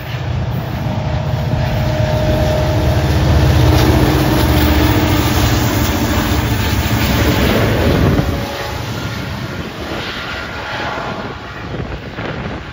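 Two CN diesel locomotives passing close by, their engine drone building to a loud, steady peak and then dropping off suddenly about eight seconds in. Autorack freight cars follow, rolling past with a lower, steady rumble of wheels on rail.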